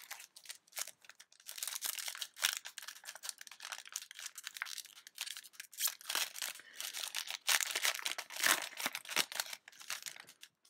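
Foil wrapper of a Yu-Gi-Oh! booster pack being torn open and crinkled, an irregular crackling that comes in bouts and is loudest about three-quarters of the way through.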